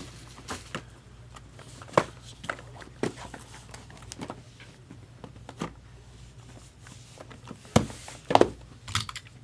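Scattered light knocks and clicks of cardboard trading-card boxes being handled on a table, sharpest about two seconds in and twice near the end, over a faint steady hum.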